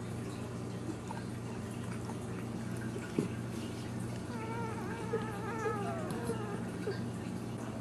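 A ten-day-old dachshund puppy squealing: a wavering, mewing cry lasting about two seconds, starting about four seconds in, over a steady low hum.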